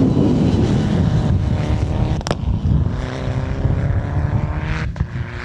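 Mitsubishi Lancer Evolution rally car's turbocharged four-cylinder engine running hard on a loose gravel stage, with the tyres churning up gravel. A sharp crack comes about two seconds in, and the engine sound eases a little as the car pulls away.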